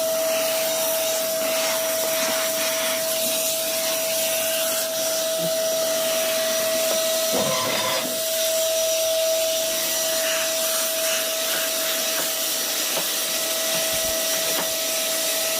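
Vacuum cleaner running steadily with a constant high whine over a hiss, and a brief rubbing noise about seven and a half seconds in.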